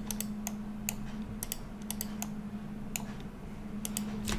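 Computer keyboard keys and mouse buttons clicking in scattered, irregular taps, about a dozen in all, over a steady low hum.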